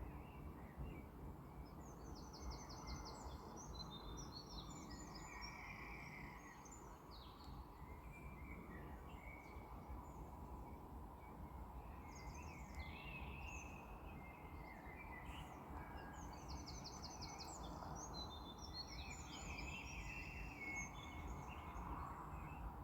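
Several songbirds chirping and singing in a dawn chorus, with short scattered calls and one rapid trill that comes twice, over a steady low background rumble.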